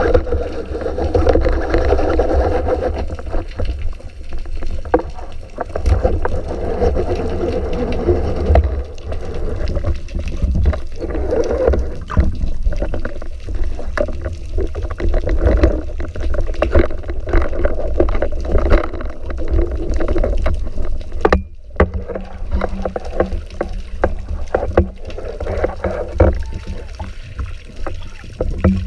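Water noise picked up by a spearfisher's camera in the sea: a heavy low rumble and sloshing, with many small clicks and knocks. It drops out briefly about two-thirds of the way through.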